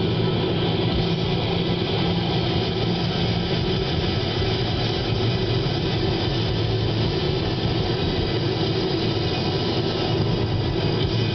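A car driving at highway speed, heard from inside the cabin: steady road and engine noise.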